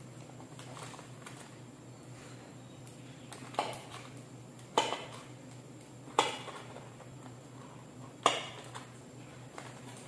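A metal utensil clinks against kitchen dishes four times, sharp knocks with a short ring, a second or two apart from about three and a half seconds in, over a low steady hum.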